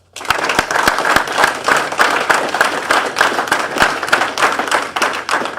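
Audience applauding, with a few individual claps standing out, starting suddenly just after the name is called and tailing off near the end.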